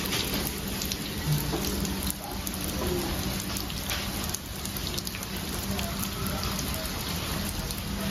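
Heavy rain pouring down, a dense steady hiss full of small drop impacts, with a steady low hum underneath.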